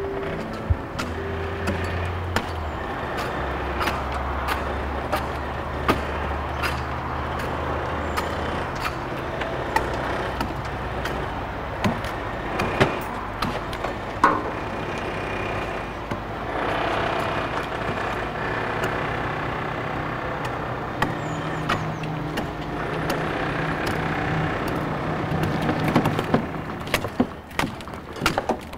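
Heavy machinery engine running with a steady low rumble, with many short sharp knocks and clanks throughout.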